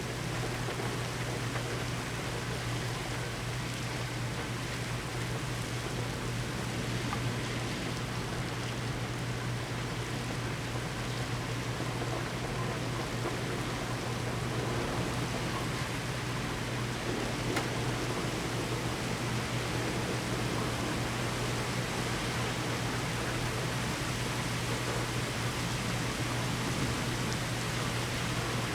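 Steady rain from a severe thunderstorm, an even rushing hiss with no breaks, over a steady low hum.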